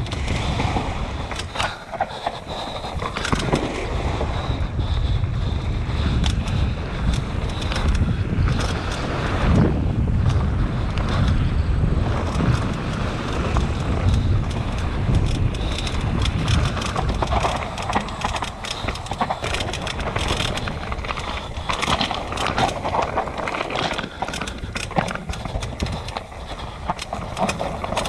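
Downhill mountain bike riding fast over rough trail, with tyres rumbling over dirt and rocks and wind on the microphone. Frequent sharp clicks and knocks come from the bike, including popping that the rider puts down to a faulty damper in the RockShox Zeb fork.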